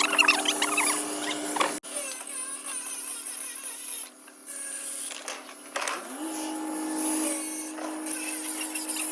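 An engine running steadily, its pitch stepping up a little about six seconds in, with scraping and clattering over it; the sound breaks off abruptly about two seconds in where the footage is cut.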